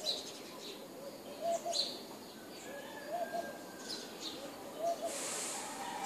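Morning birdsong: a low call repeated about every second or so, with short high chirps from smaller birds. A brief hiss comes about five seconds in.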